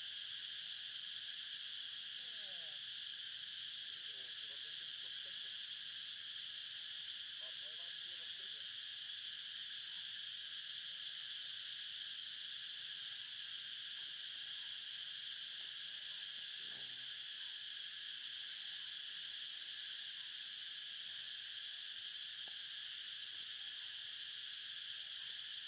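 A steady, high-pitched chorus of insects buzzing without a break, with a few faint, brief sliding calls underneath it.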